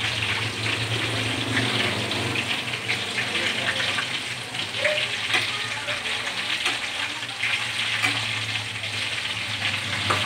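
Hot oil sizzling and crackling steadily around a whole fish frying in a wok, over a steady low hum.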